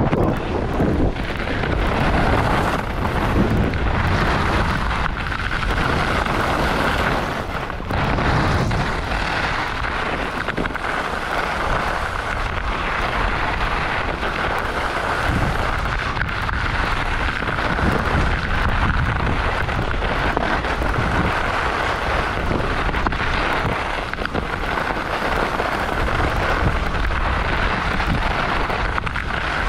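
Wind rushing over an action camera's microphone during a fast ski descent, with the skis hissing and scraping over packed snow. A steady, loud noise with a low rumble, unbroken by any voice.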